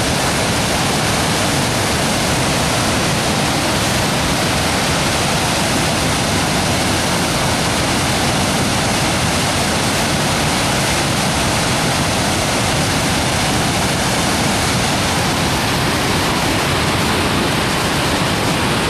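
Swollen floodwater rushing after heavy rain, a loud, steady, unbroken noise of fast-moving water.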